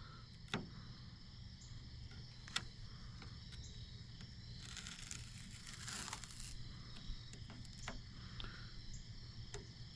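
Masking tape being peeled off the freshly painted hull of a jon boat: a faint ripping hiss lasting about two seconds near the middle, with a few light clicks and taps before it.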